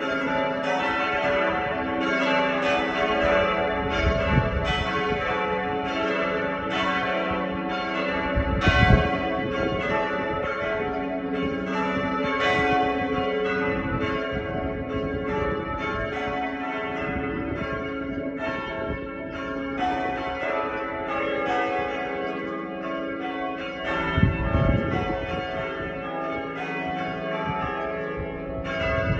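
A ring of six heavy church bells, tenor 18 cwt in E, being rung down from outside the tower: strokes come in quick, overlapping succession as the bells are lowered. A few low rumbles swell up now and then under the bells.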